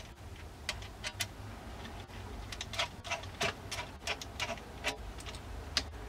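Screwdriver turning the stock screw into the tang of a Marlin 1894 lever-action rifle: a string of small, irregularly spaced metallic clicks and ticks.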